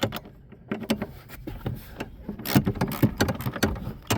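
Irregular knocks, clicks and rustling of tools and gear being handled, growing busier and louder in the second half.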